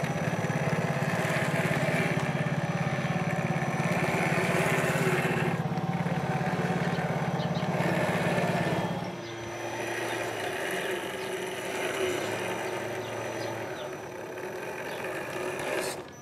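1/10-scale RC4WD Trail Finder 2 rock crawler's electric motor and gear drivetrain whining steadily as it crawls over dirt. About 9 s in it drops lower and quieter.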